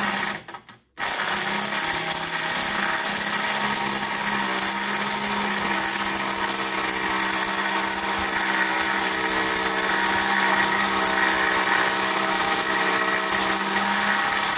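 Cordless drill with a socket running on a rusted bolt in the flange of an 1800s cast iron coffin, backing it out to free the lid. It runs, cuts out briefly about a second in, then runs steadily on.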